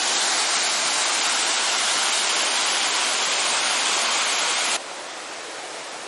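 A large waterfall in heavy flow, swollen by rain, making a loud, steady rushing roar. Near the end it cuts off suddenly, leaving a much quieter, steady hiss.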